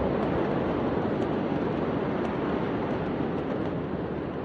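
Steady rushing roar of a large fire burning at the port warehouse, heard from a distance through a phone microphone, with a few faint scattered ticks.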